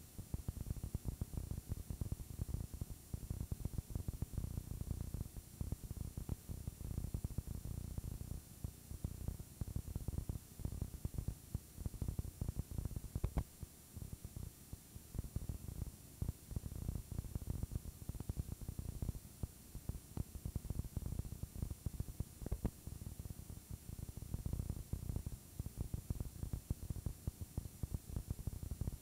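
Crackling, buzzing static and hum from a blank stretch of videotape: a dense, irregular low crackle with faint hiss above it.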